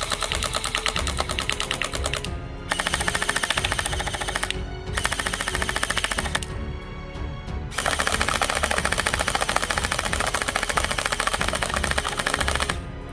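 Electric gel blasters, an M1911-style pistol and an MP9-style splatter ball gun, firing gel balls on full auto in four rapid bursts of a couple of seconds each, the last about five seconds long. Background music plays underneath.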